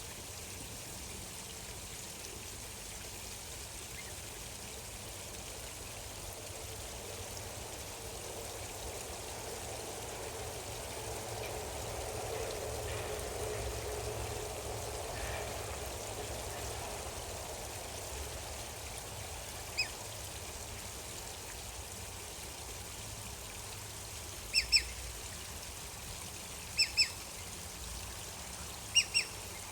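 Steady trickle of flowing water, swelling a little in the middle. Over it, a bird gives one short sharp call, then three quick double calls in the last few seconds, the loudest sounds here.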